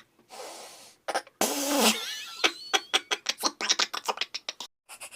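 A person imitating car noises with his mouth: a breathy hiss, then a loud buzzing burst with whistling pitch glides, then a quick run of popping clicks.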